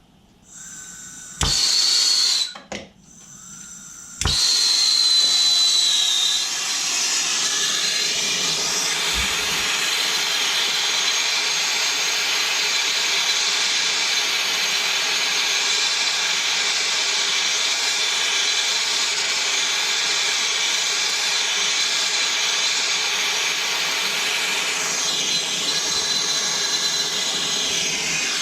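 Handheld gas torch flame, lit with a sharp pop about a second and a half in, cutting out after about a second, lit again with another pop around four seconds, then burning with a steady loud hiss while heating the tank metal for soldering.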